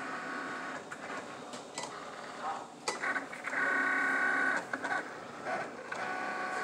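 Cricut Explore Air 2 cutting machine drawing with a fine-point pen: its motors whine in shifting pitches as the pen carriage and rollers move, loudest a little past the middle, with a sharp click about three seconds in.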